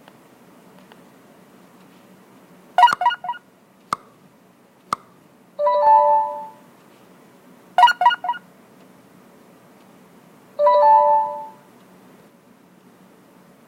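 Chime-like tonal sound effects, heard twice: a quick run of four short pips, then a held tone about a second long. Two single clicks fall between the first pair.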